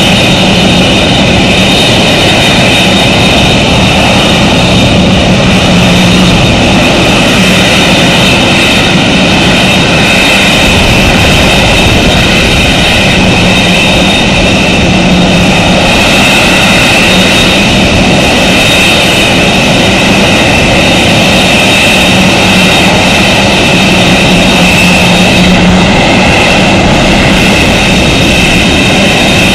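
Boeing 747-8F freighter's four GE GEnx-2B turbofans running at taxi power: a loud, steady jet whine of several high tones over a low rumble, the tones starting to rise near the end.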